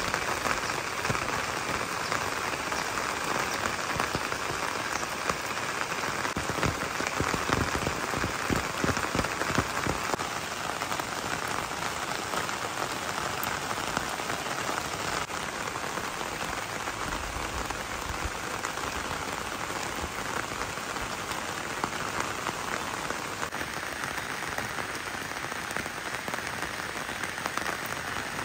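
Steady rain falling, with individual drops pattering close by.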